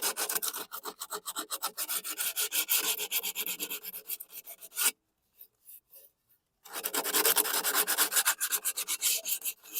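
Coarse sandpaper scrubbed in rapid back-and-forth strokes over a rust spot on a lawn mower's deck, roughing up the rust before painting. The scrubbing stops for about a second and a half halfway through, then starts again.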